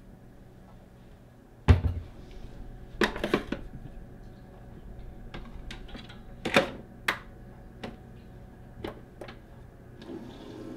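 Kitchen handling sounds: a sharp knock of a ceramic mug taken from a shelf and set down on the counter, a short clatter a second later, then scattered lighter clicks and taps as things are handled at the counter.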